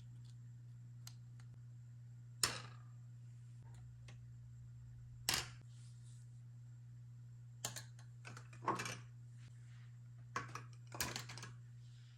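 Small plastic toy kitchen pieces being handled and set down: sharp clacks and taps, two single ones and then several quick clusters, over a steady low hum.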